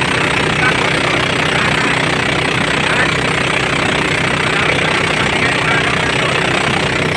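Fishing boat's engine running steadily, a loud, even drone heard from on board.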